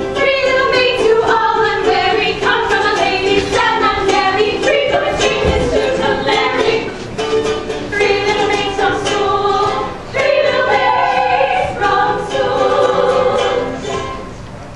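Several voices singing a song together to a plucked string accompaniment, with a brief dip about ten seconds in, fading out near the end.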